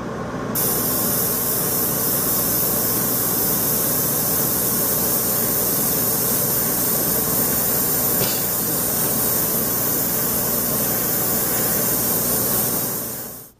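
Airbrush spraying paint in one steady hiss onto a plastic model hull, over a low steady hum. It starts about half a second in and tails off just before the end.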